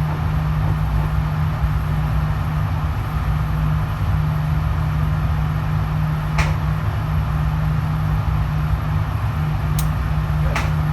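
Steady low droning hum of an indoor gun range's air handling, with a few faint sharp clicks in the second half.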